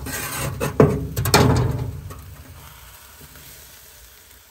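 Sausages sizzling loudly on a grill over a fire, with a couple of sharp knocks, likely from a utensil, in the first second or so. The sizzle dies down after about two seconds to a faint hiss.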